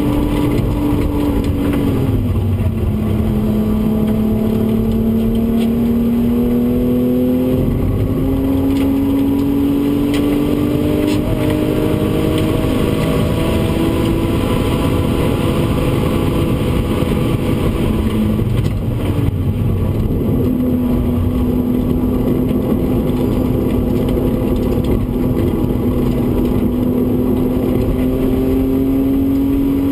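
BMW E36 320's straight-six engine, heard from inside the cabin, pulling hard at racing speed. Its pitch drops about two seconds in and again near the nineteen-second mark, as at gear changes, and climbs slowly in between, over steady tyre and wind noise.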